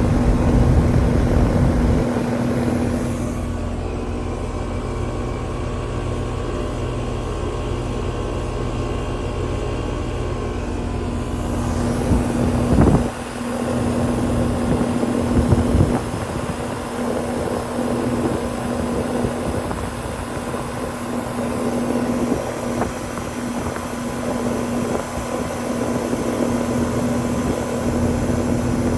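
Lennox air conditioner's outdoor condensing unit running with a steady hum from its compressor, which is low on Puron (R-410A) refrigerant because of a leak in the condenser coil. A couple of knocks about halfway through.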